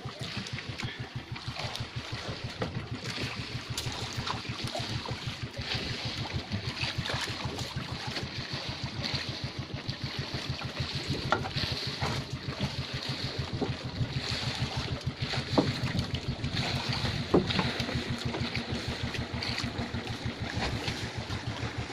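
Engine of an outrigger fishing boat idling with a fast, even low thudding, under wind and lapping water. A few sharp knocks stand out as the net rope is hauled over the side.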